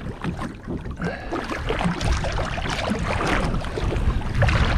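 Wind buffeting the microphone and water slapping and splashing against a small boat's hull in a choppy sea, with irregular small knocks.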